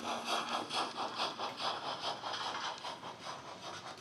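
DCC sound decoder in a Hornby model of the LNER W1 'Hush Hush' playing a steam exhaust beat through its speaker: a steady chuffing of about two and a half beats a second with hiss, fading as the train moves away.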